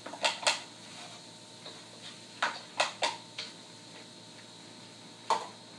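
A wooden spatula and a plastic container clacking against a wok as carrots are tipped in and stirred: two knocks near the start, a run of four about halfway, and one more near the end.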